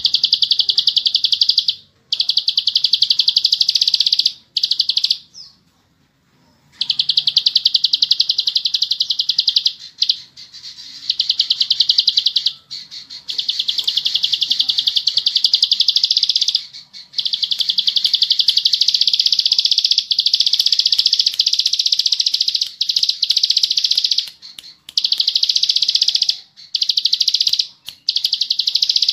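Ciblek sawah (a prinia) singing long, fast trills of tightly packed high clicks, each phrase running several seconds with brief breaks between them.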